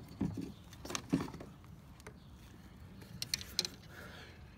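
Handling noise: scattered soft clicks and knocks as the phone and the fishing gear are handled, with a small cluster of clicks near the end, over faint outdoor background.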